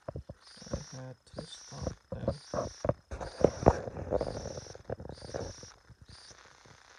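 A rapid, irregular run of knocks and thuds that thins out and stops about six seconds in.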